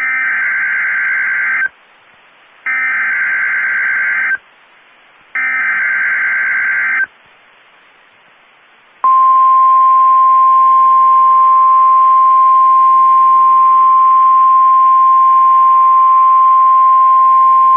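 NOAA Weather Radio emergency alert opening a severe thunderstorm warning. It starts with three loud bursts of warbling digital data (the SAME header), each under two seconds and about a second apart, with faint radio hiss between them. After a short pause comes the single steady Weather Radio alarm tone, held for about nine seconds.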